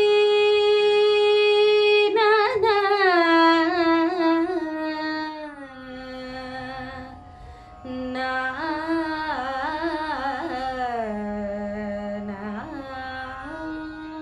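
A woman singing a wordless Carnatic vocal prelude: a long held note, then quick ornamented turns of pitch. The line descends to a low held note about three-quarters of the way through and rises again near the end.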